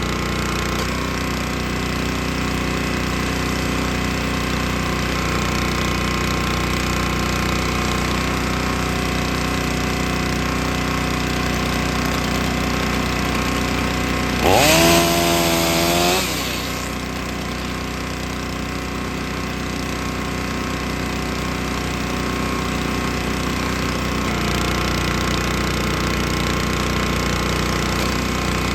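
Small gasoline engine running steadily at low speed, briefly revved up to high speed about halfway through for a second and a half, then dropping back.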